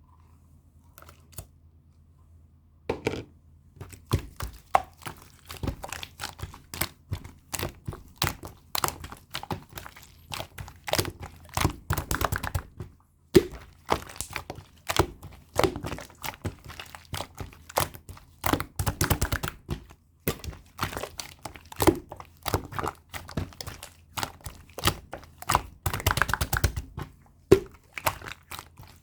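White slime being squished and stretched by hand, making rapid sticky clicks, pops and crackles that start about three seconds in and keep coming in quick runs.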